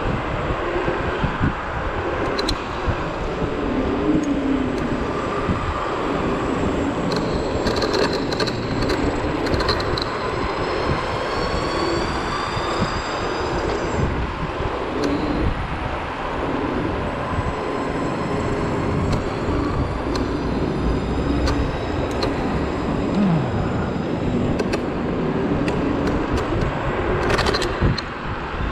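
Wind rushing over the body-mounted microphone and tyre rumble from a Zero 10x electric scooter riding at speed, with a few sharp knocks from bumps in the road. About ten seconds in, a faint high whine rises for a few seconds.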